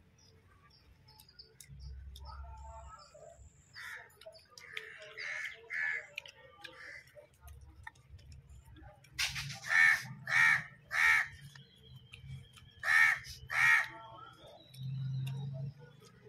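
Crow cawing: softer calls at first, then a run of four loud, harsh caws about halfway through and two more a couple of seconds later.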